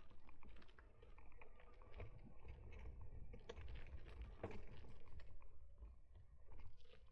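Irregular light clicks and rattles over a steady low rumble, as picked up by a camera strapped to the frame of an electric mountain bike on the move.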